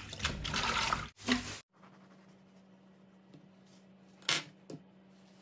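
Water running from the kitchen tap and splashing over iceberg lettuce leaves being rinsed by hand in a bowl in a metal sink; it stops abruptly about a second and a half in. After that, a low steady hum, with one short sharp sound about four seconds in as a burger bun is cut with a knife on a wooden board.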